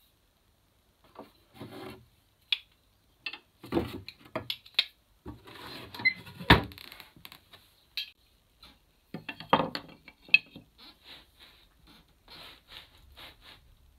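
Wooden-handled hand tools knocking and clattering as a chisel is put away in a wooden tool chest, with the chest's plywood lid knocked shut about six and a half seconds in, the loudest knock. More tool knocks and light clatters follow.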